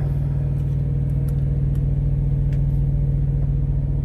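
Idling semi-truck diesel engine, a steady low drone with a fine regular pulse, with a few faint clicks over it.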